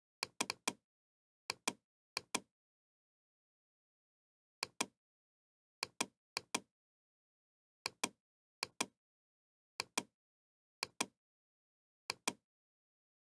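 Computer mouse clicking about a dozen times at uneven intervals, each click a sharp pair of ticks from the button's press and release.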